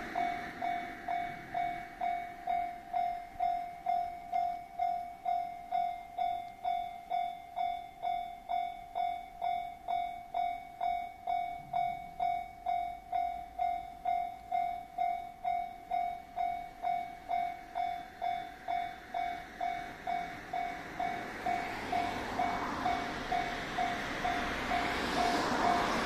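Japanese level-crossing warning bell ringing steadily, an electronic ding about twice a second. In the last few seconds a rushing noise rises beneath it as the diesel railcar approaches.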